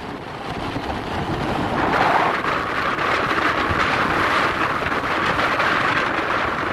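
Wind rushing over the microphone of a camera on a moving motorbike, with engine and road noise beneath. The noise steps up abruptly, louder and brighter, about two seconds in.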